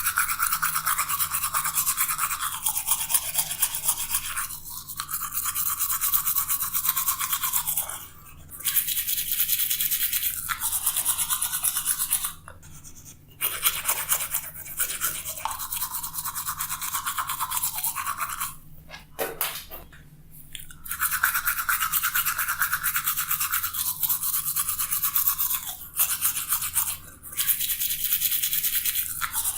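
Manual toothbrush scrubbing teeth with rapid back-and-forth strokes, in stretches of several seconds broken by brief pauses.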